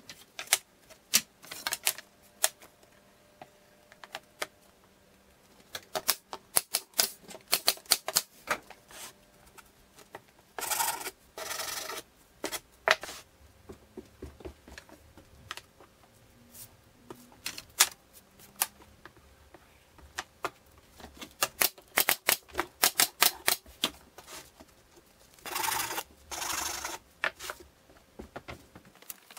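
Wooden stretcher bars clicking and knocking as they are handled, fitted together and set down on a wooden workbench. The clicks come in scattered flurries. Twice, a pair of short scraping sounds of about a second each is heard.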